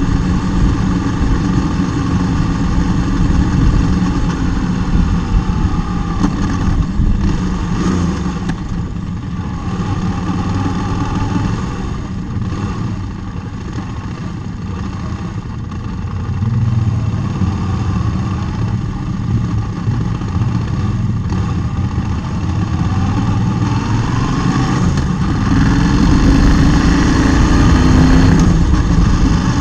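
A motorcycle engine running while it is ridden along a village road, under steady wind and road noise. The engine eases off in the middle, then its note rises as it accelerates near the end.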